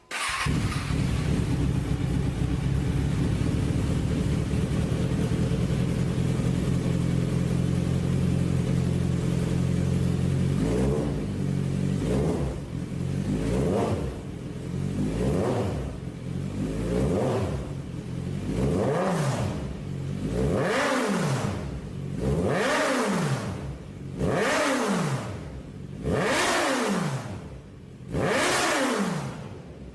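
Kawasaki Z1000 inline-four engine idling steadily through its exhaust. About a third of the way in it starts being revved over and over, roughly once every two seconds, each rev climbing sharply and dropping back toward idle.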